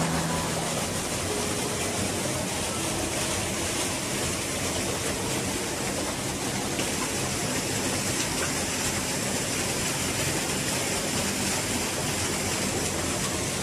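Steady rushing of running water.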